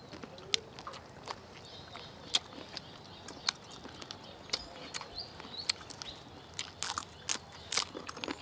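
People eating crispy fried chicken by hand: irregular sharp crunches and mouth clicks from chewing, coming thicker near the end. Faint bird chirps sound in the background.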